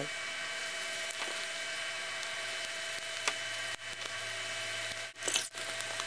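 Light handling of a foam outlet gasket against a plastic outlet cover plate on a table: a few faint ticks and a short scuffing sound about five seconds in, over a steady hiss.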